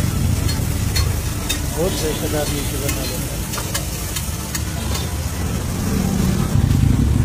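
Metal spatula scraping and clicking on a large flat iron griddle while chopped vegetables fry and sizzle on it, with a low rumble underneath.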